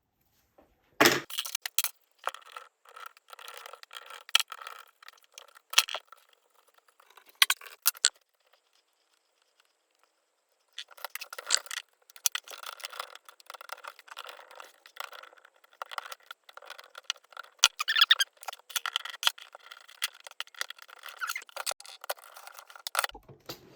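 Small clicks, taps and scraping from tools and plastic parts while a mid-2000s Asus laptop is taken apart, in two bursts of work with a short pause between them.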